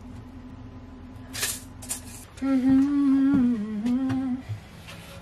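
A woman humming a few notes of a tune for about two seconds near the middle, the pitch stepping down at the end. A couple of light knocks come just before it.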